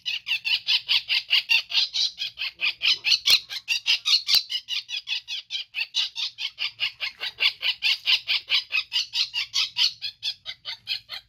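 An animal's high-pitched chirping call repeated rapidly and evenly, about five chirps a second.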